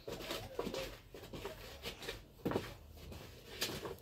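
A wooden stick scraping and knocking around inside a dried calabash gourd in irregular strokes, rubbing soot from the stick onto the gourd's inner wall to prepare it for holding milk. A sharper knock comes about two and a half seconds in.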